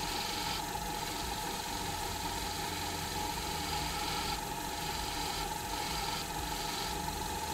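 Small benchtop lathe running with a steady whine as it spins a pool cue shaft, while 120-grit sandpaper held against the spinning jump tip gives a hissing sanding noise that cuts in and out several times.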